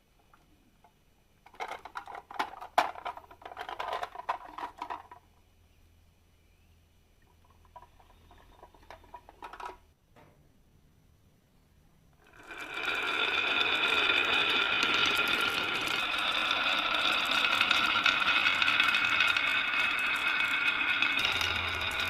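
Marbles clicking and rattling down a wooden marble run track in a few quick bursts. About halfway through, a steady, much louder buzzing sound with fixed pitches takes over and keeps going.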